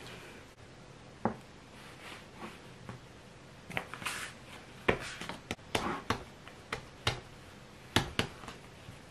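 Bread dough being kneaded and handled by hand on a wooden tabletop, with scattered sharp taps and slaps that come thicker in the second half. A plastic dough scraper scrapes flour and dough bits across the wood around the middle.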